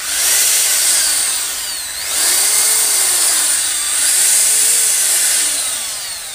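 Corded 13 mm electric drill, rated 1600 W, run free with no load: its motor whine starts suddenly, sags about two seconds in and again near four seconds as the trigger eases, picks up each time, then winds down near the end.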